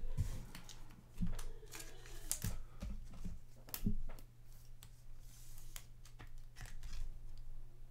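Trading cards being handled by hand, slid and flipped one behind another, giving soft irregular clicks and rustles. A faint steady low hum runs underneath.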